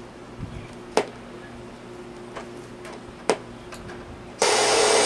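Two sharp clicks of the Aiwa CS-210 boombox's top-panel buttons and switches being worked, then a little over four seconds in its radio comes on suddenly and loud with a steady hiss of static.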